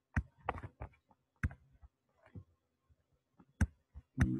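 Irregular sharp clicks and taps of a pen stylus striking a tablet surface during handwriting: a cluster in the first second, a lull, then more near the end.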